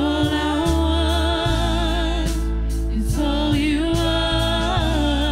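Live worship band playing: a singer holds two long notes with vibrato over steady bass, drums and keyboard.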